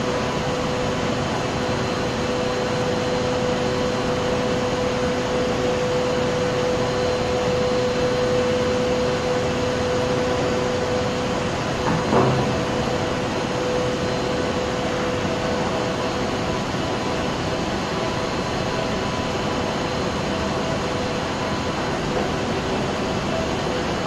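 Steady loud drone of power-station machinery, an even rushing noise with a few held tones in it. A single short knock about halfway through.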